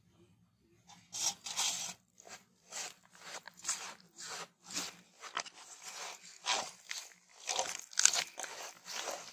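A hand mixing a wet spice marinade of curd, oil and masala powder in a stainless steel plate: an irregular run of wet scraping strokes against the metal, starting about a second in.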